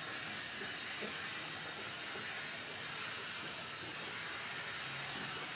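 Steady faint hiss with a thin, constant high tone, and a brief crackle about four and a half seconds in.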